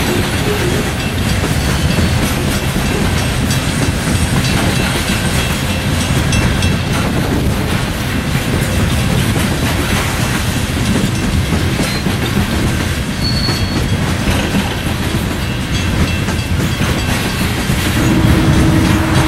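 Loaded coal hopper cars of a long freight train rolling past, a steady rumble with the clatter of steel wheels on the rails.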